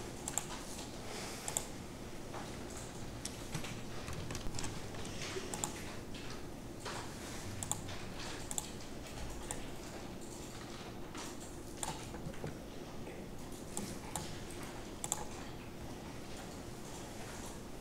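Irregular clicking of a computer mouse and keyboard over a steady low hum.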